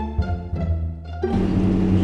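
Playful string music with plucked and bowed cello and violin notes; about a second in it cuts off and gives way to a steady car hum.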